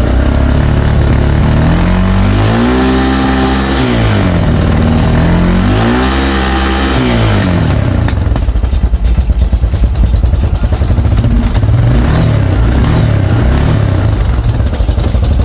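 Off-road vehicle engine revved twice, each rev climbing and falling back, then running on with a choppy idle and a few small blips of the throttle.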